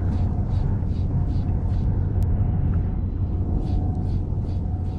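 Steady low rumble with a faint steady whine, and over it soft rhythmic swishing about twice a second from a spinning reel being cranked to retrieve a lure, pausing briefly midway.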